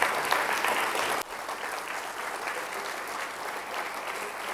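Audience applauding. The applause drops suddenly to a lower, steady level a little over a second in.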